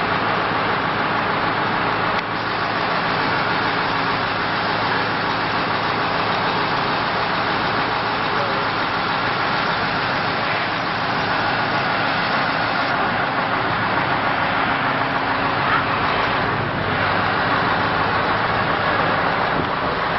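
Heavy diesel engine running steadily with a low, even drone, under a constant rush of street noise.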